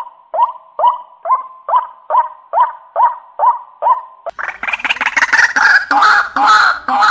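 White-breasted waterhen (ruak-ruak) calling, as used in a trapping lure: a regular series of short rising notes, about two to three a second. About four seconds in it switches abruptly into a louder, harsher jumble of overlapping croaking calls.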